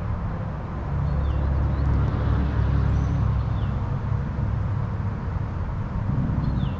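Steady low outdoor rumble with a few faint, short descending bird chirps, about three.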